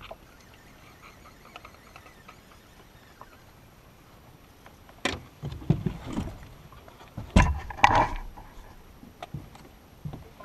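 Knocks and thumps inside a fishing boat, in two clusters about five and seven and a half seconds in, the second the loudest, with a brief ringing note.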